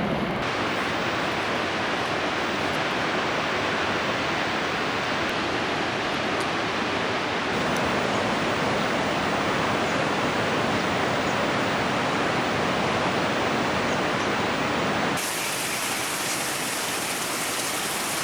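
Waterfall's steady rushing noise of falling water, with no pitch to it; its tone shifts slightly twice, about seven and fifteen seconds in.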